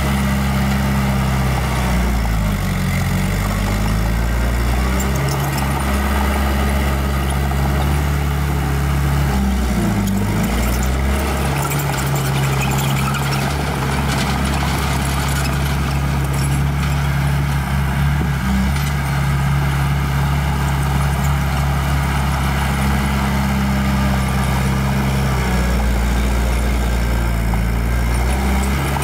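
Heavy-equipment diesel engine running steadily. Its pitch dips and comes back up about two seconds in and again about ten seconds in, as the machine works under load.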